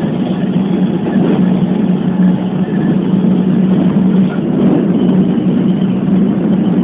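Keikyu New 1000 series electric train running along the line, heard from just behind the driver's cab: a steady running rumble with a strong low hum, thin and muffled through a feature phone's microphone.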